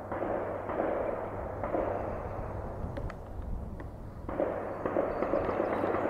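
Canadian National diesel freight train passing over a creek bridge: a steady low engine hum under a rough rumble that jumps louder and softer in sudden steps, dipping briefly about four seconds in.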